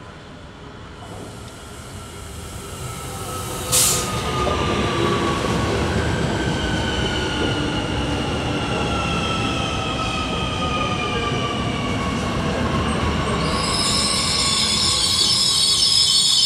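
SNCF Z 50000 (Francilien) electric train pulling into the station, growing louder as it approaches, with a short sharp crack about four seconds in. Its motor whine falls slowly in pitch as it slows, and a high squeal starts near the end as it comes to a stop.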